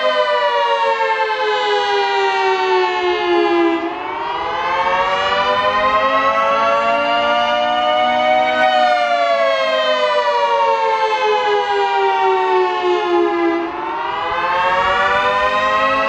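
Federal Signal 3T22 outdoor warning siren sounding the attack signal: a loud chord of several tones that slowly falls and rises in pitch, dipping to its lowest and quietest about 4 seconds in and again near the end, then climbing back up.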